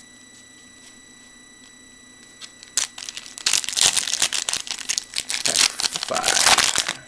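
A trading-card pack wrapper being torn open and crinkled in the hands. It starts suddenly about three seconds in, after a quiet stretch, and goes on as a dense, loud crackle.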